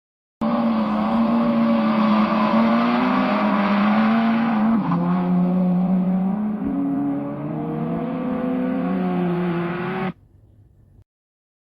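Racing car driving, its engine note shifting down and up in pitch several times. It cuts off suddenly about ten seconds in.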